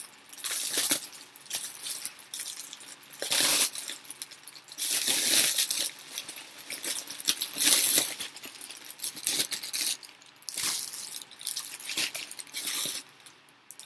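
Clear plastic wrapping being pulled and torn open by hand, crinkling and rustling in irregular bursts.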